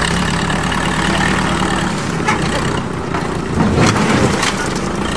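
Heavy machine engine running steadily, its note changing about two seconds in, with a few sharp knocks partway through.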